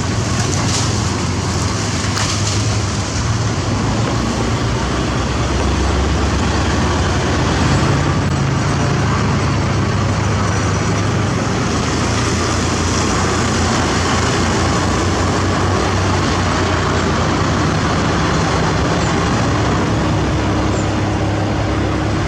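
Heavy-equipment diesel engine running steadily and loudly, its low hum lifting slightly about eight seconds in.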